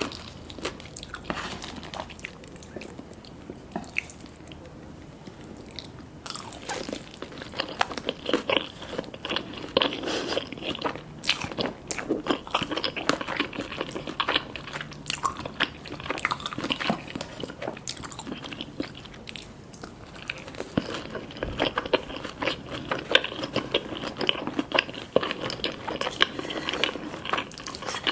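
Close-up crunching, biting and chewing of crispy food, quieter for a few seconds early on, then dense, irregular crunching from about six seconds in.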